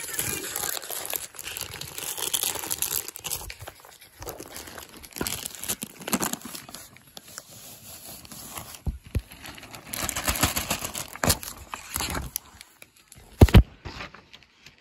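Clear plastic comic book bags crinkling and rustling as comics are handled, with a couple of sharp knocks near the end.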